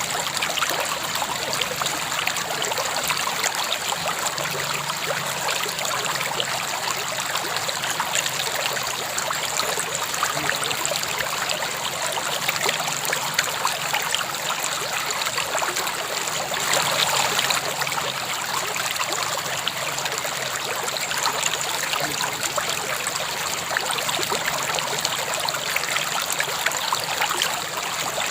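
River water flowing steadily over stones. The sound swells briefly about 17 seconds in.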